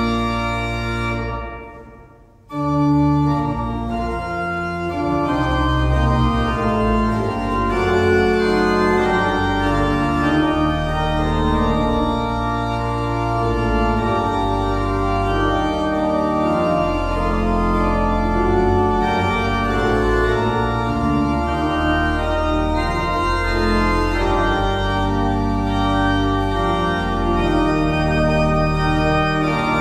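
Church organ playing slow music of long held chords with a deep bass. Shortly after the start it dies away for a moment, then comes back in about two and a half seconds in.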